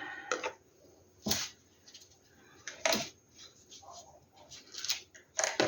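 A few light knocks and clicks, three of them sharper and spaced more than a second apart, with a little faint clatter between: paint cups and bottles being handled and set down on a work table.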